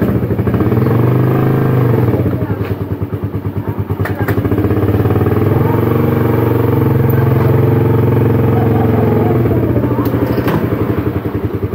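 Motorcycle engine running as the bike rolls slowly along. It swells twice and eases off near the end as the bike slows, with a few light clicks along the way.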